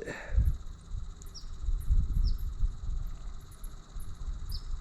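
Bats roosting in the bridge squeaking: many short, very high chirps scattered throughout, with a few lower falling chirps. A low rumble runs underneath.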